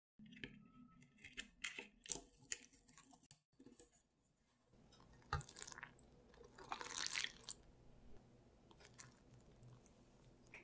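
Cap of a plastic strawberry-milk bottle worked open by hand: a run of small clicks and crinkles in the first few seconds. After a tap, strawberry milk is poured onto flour in a glass bowl, with a short hissing splash about seven seconds in.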